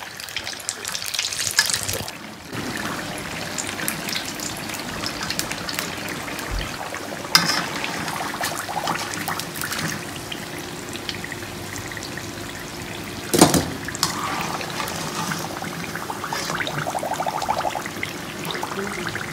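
Samosas frying in a pan of hot oil: a steady sizzle with fine crackling. Metal tongs and a skimmer clink now and then against the pan, with one sharp knock a little past the middle.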